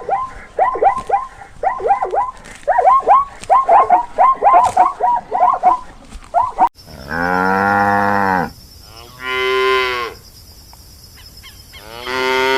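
Cow mooing three times, with long, low, drawn-out calls, the middle one shorter. Before that, for about the first half, comes a fast run of short, high calls from another animal, which stops at a sudden cut.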